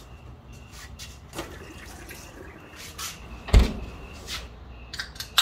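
A few knocks and clicks, with one heavy dull thump about three and a half seconds in.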